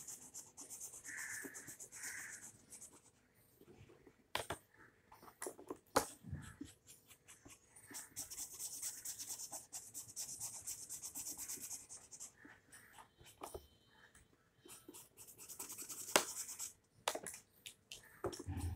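Felt-tip sketch pen scratching back and forth on paper while colouring in, in three spells of quick strokes, with a few sharp clicks in between.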